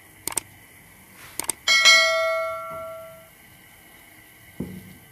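Subscribe-button overlay sound effect: mouse clicks, then a bell chime that rings and fades over about a second and a half. A soft thump follows near the end.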